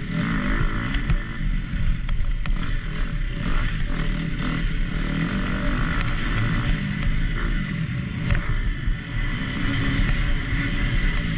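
Four-stroke single-cylinder 250 cc motocross bike engine running hard at race pace. Its pitch keeps rising and falling with throttle and gear changes, and a few sharp clicks and knocks come through along the way.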